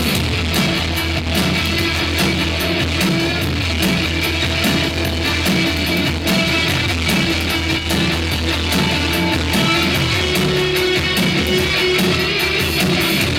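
Live rock band playing an instrumental passage with guitar over a steady beat, no singing.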